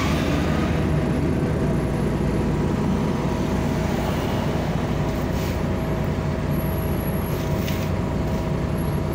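Mercedes-Benz OM447hLA six-cylinder diesel of a Mercedes-Benz O405N2 city bus idling steadily while the bus stands at a red light, heard from inside the cabin, with a faint steady whine above the low engine drone.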